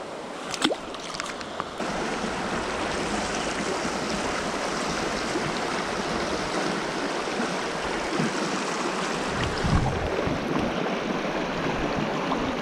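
Shallow mountain trout stream running over rocks: a steady rush of moving water, with a few brief sharp knocks in the first second or two.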